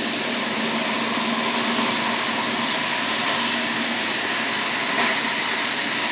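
Steady rush of wind and wheel-on-rail noise from a train running at high speed, heard through the rear window of a coach with a VR Sr2 electric locomotive coupled right behind it. A faint hum comes and goes underneath, and a single short knock comes about five seconds in.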